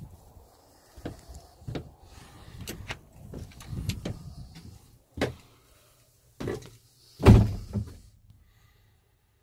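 A string of knocks and thumps from someone stepping about and handling things aboard a small fiberglass cabin boat, passing through the cabin doorway; the loudest thump comes about seven seconds in.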